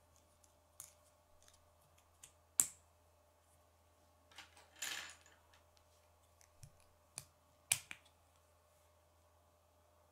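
Plastic K'nex parts clicking and scraping in the hands as they are snapped together into a gear hub: a handful of scattered sharp clicks, the loudest about two and a half seconds in, and a brief scraping rustle around the middle.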